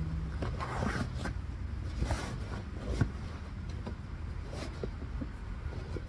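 Bedsheet fabric rustling as it is spread and smoothed over a mattress, with light handling knocks and one sharper knock about three seconds in, over a steady low rumble.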